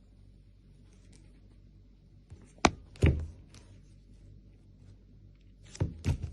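Two pairs of sharp knocks, each pair about a third of a second apart, the first pair near the middle and the second near the end, with a low thud after the second knock.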